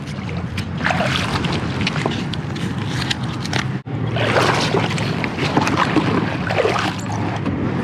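Shallow water sloshing and splashing around an inflatable paddle board, with wind on the microphone. After a short break about four seconds in, a kayak paddle dips and splashes in the water as the board is paddled.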